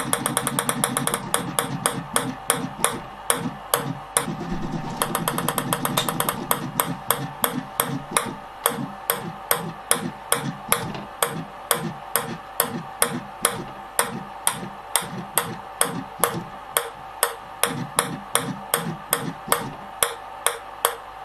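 Ping-pong ball bouncing again and again on the bouncing machine's plate, each bounce a sharp click. The clicks come fast for the first several seconds, then settle to about two or three a second, over a steady whine.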